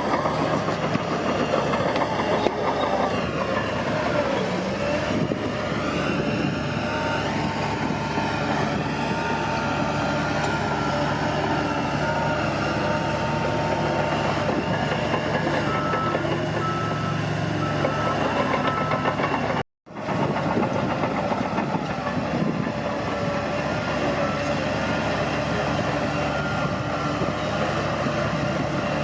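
Bulldozer's diesel engine running steadily under load, with a repeated beeping near the two-thirds mark; the sound cuts out for an instant shortly after.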